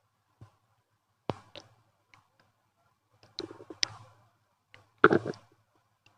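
A person's stomach gurgling in short pops and squelches, in three clusters, the loudest about five seconds in.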